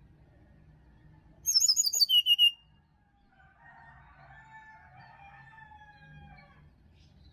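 Brown-chested jungle flycatcher singing: a loud, quick run of about eight high notes stepping down in pitch over about a second, followed by fainter, lower warbling notes for about three seconds.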